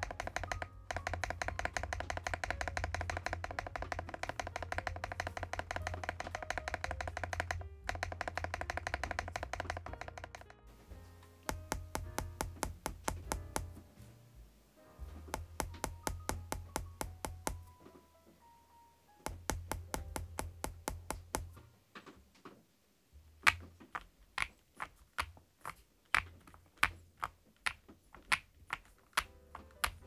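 Typing on an EPOMAKER TH40 gasket-mount mechanical keyboard with Wisteria switches. Fast continuous typing for about the first ten seconds gives way to short runs of keystrokes with pauses, then single keys pressed one at a time near the end. The key sound is low-pitched.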